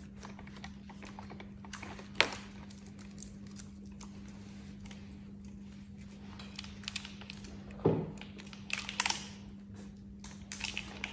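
Scattered clicks and rustles of a respirator and its elastic straps being handled and pulled on over the head, with a sharp click about two seconds in and a thump near eight seconds, over a steady low hum.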